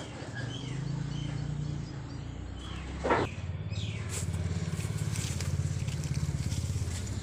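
A steady low engine hum, like a motor idling, with a brief sharp sound about three seconds in and a few faint high chirps.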